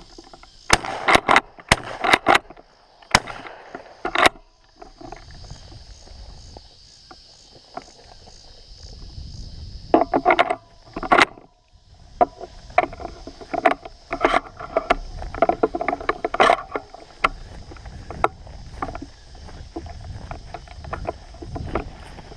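A steady high-pitched chorus of insects, with many irregular knocks and rustles close by. These come in clusters about a second in, near ten seconds, and from about thirteen to seventeen seconds.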